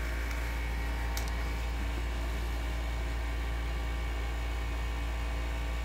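Steady low hum with a hiss over it, and one faint click about a second in.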